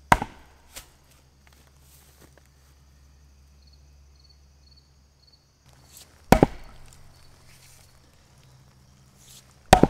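Axe chopping wood: three hard, sharp blows, the first right at the start, the second about six seconds in, the third near the end.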